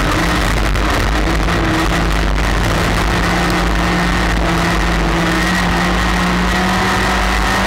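Stock car's engine running hard under race throttle, heard from inside the cockpit, with its pitch creeping upward in the last few seconds as the car accelerates down the straight.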